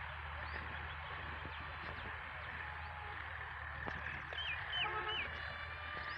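Village ambience with a steady background hiss and low hum. About four and a half seconds in come three quick chirping bird calls, overlapping a brief nasal honk from a domestic fowl.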